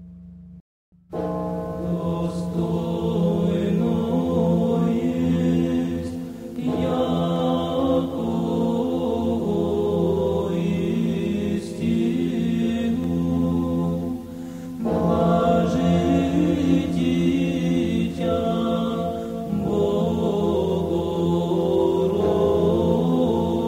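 Choral chant with voices holding long notes over a low held tone, sung in phrases that break off and start again every few seconds. It begins after a short silent gap just under a second in.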